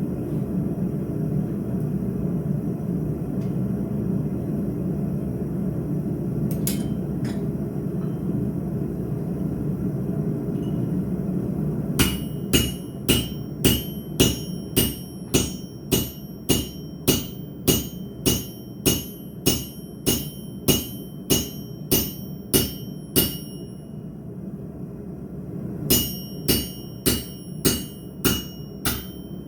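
Steady low rumble for about twelve seconds, then a hammer striking steel on an anvil about twice a second, each blow ringing. After about twenty blows there is a short pause, then the hammering resumes.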